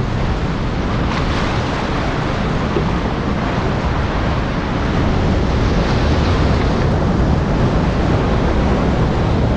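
Surf washing and breaking against the jetty rocks, with wind buffeting the microphone in a steady low rumble.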